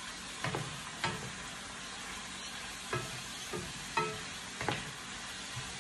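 Sliced bitter melon (ampalaya) sizzling with a steady hiss in a nonstick frying pan as a wooden spatula stirs it, knocking against the pan six times.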